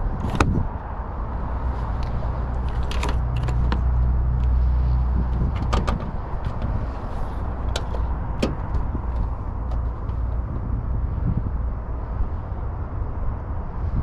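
Scattered clicks and knocks from a 2018 Jeep Wrangler Sahara's fittings being handled, over a steady low rumble that is louder between about two and five seconds in.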